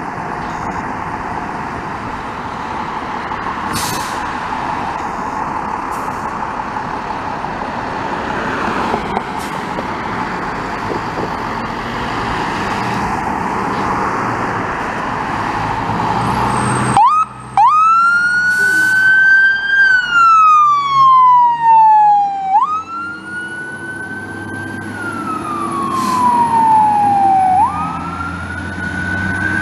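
Fire engine siren in wail mode, three cycles, each rising quickly and falling slowly, over the truck's engine. It follows a steady rushing noise that fills the first half.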